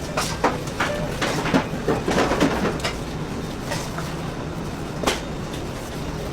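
Bakery production machinery running with a steady hum, with irregular clacks and knocks of trays or equipment, busiest about two seconds in.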